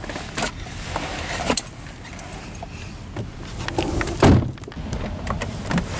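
Car door sounds: a few light clicks and knocks, then one heavy thump against the car body a little over four seconds in.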